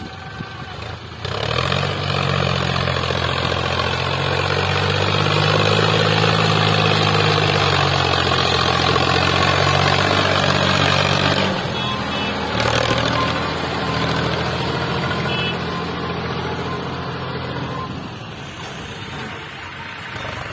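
Sonalika DI 745 RX tractor's diesel engine running steadily under load, pulling a fully loaded trolley of sand through loose ground. There is a short break in the sound near the middle, and it grows fainter over the last couple of seconds as the tractor moves away.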